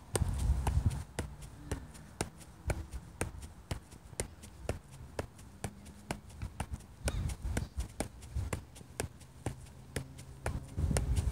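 Soccer ball being juggled off the foot, each touch a soft tap, about two a second in a steady rhythm. A low rumble comes in near the end.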